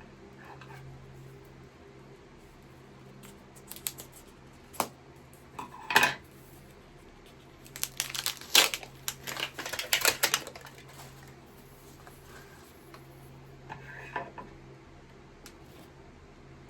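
Small hard objects being handled and set down on a tabletop: scattered clicks and knocks, with a quick run of clattering about eight to ten seconds in, over a low steady hum.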